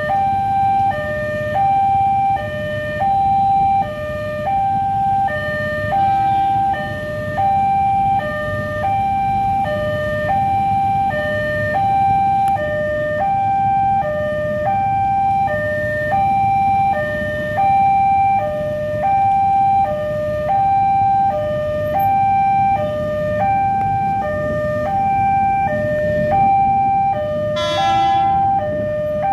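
Railway level-crossing warning alarm sounding: an electronic signal alternating steadily between a higher and a lower tone, the warning that a train is approaching and the barriers are down. A low rumble lies under it, and a brief horn sounds near the end.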